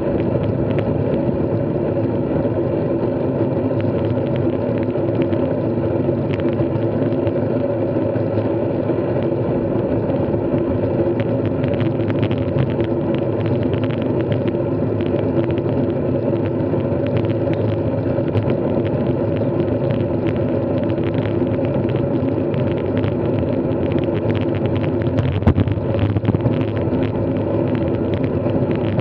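Steady hum and rumble of a bike in motion at an even speed, unchanging throughout, with one brief knock about 25 seconds in.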